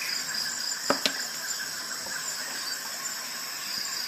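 Two sharp clicks close together about a second in as the sound level meter and its manual are handled, over a steady high-pitched hiss.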